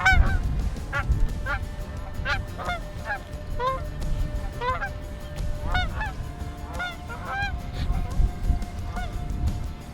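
Canada geese honking, many overlapping calls in quick, irregular succession, over the low rumble of strong wind buffeting the microphone.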